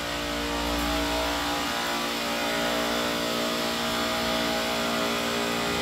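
Refrigeration rack of Copeland scroll compressors running steadily after start-up, a constant mechanical hum with a few steady tones.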